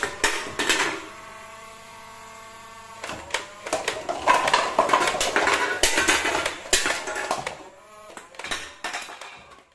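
Toy foam-dart blaster firing: a few sharp shots, then a steady motor whine for about two seconds, then rapid bursts of shots. Darts knock over stacked paper cups and cans, which clatter down, with more shots near the end.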